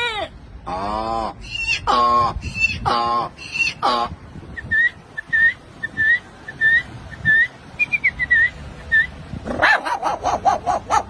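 A man imitating animals with his voice: four drawn-out whining calls that glide in pitch, then about a dozen short high bird-like chirps at two or three a second, then a quick run of sharp yelping calls near the end.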